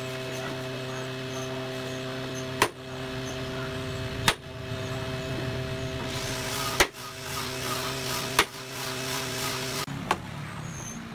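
Claw hammer driving nails into wooden bed slats: about five separate sharp blows, roughly one every second and a half. A steady hum runs underneath and stops near the end.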